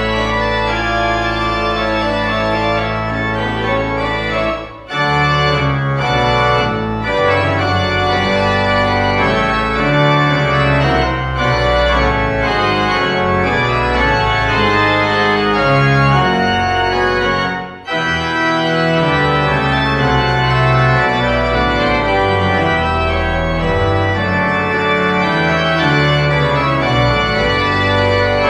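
Pipe organ playing a postlude: full, sustained chords over a bass line that holds for the first few seconds and then moves. It breaks off briefly twice, about five seconds in and again near eighteen seconds, between phrases.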